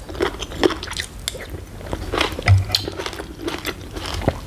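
Close-miked wet chewing and lip smacks of a person eating a juicy tomato from a spoonful of papaya salad, with a sip of the salad's broth from the spoon near the end.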